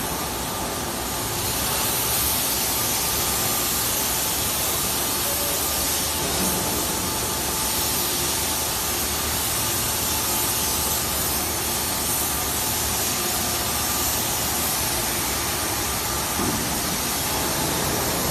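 Automatic bag-cutting and handle-punching machine running: a steady, hissing machine noise with no distinct strokes.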